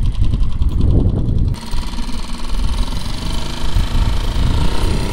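Small four-stroke outboard motor on an inflatable dinghy, running steadily. About a second and a half in, the sound changes abruptly to a steady running note with a higher whine over it.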